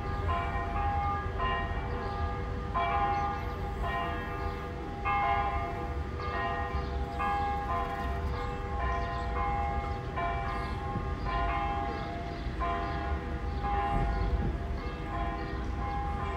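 Church bells pealing, with several bells struck in turn about once a second and their tones ringing on over one another above a steady low rumble.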